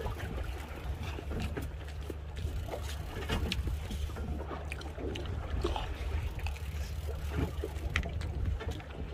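Small fishing boat's engine idling with a steady low hum, with water lapping against the hull and scattered light knocks and clicks.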